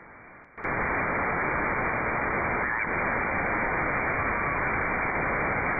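Shortwave receiver audio in upper-sideband mode with no station tuned in: a steady hiss of band noise and static, cut off above about 2.4 kHz by the receiver's passband. It jumps suddenly from faint to loud about half a second in.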